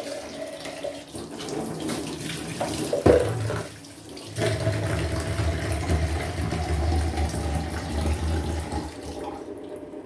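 Kitchen tap running into a sink as things are washed, with a knock about three seconds in. The water grows quieter for a moment before four seconds, then runs fuller and louder.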